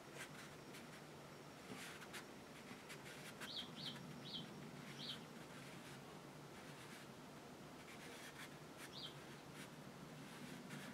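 Faint strokes of a fine watercolour brush on paper, with scattered light ticks. A few short high chirps, four in quick succession about three and a half seconds in and one more near nine seconds.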